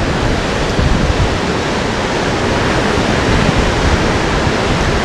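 Steady rushing of ocean surf against rocks, mixed with wind on the microphone, forming an even, continuous roar of noise.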